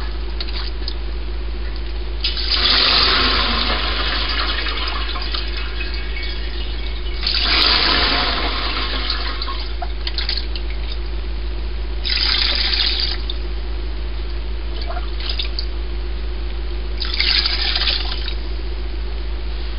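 Fermented corn mash being ladled into a plastic colander over a cheesecloth-lined pot, splashing and draining through in five separate pours, one of them short.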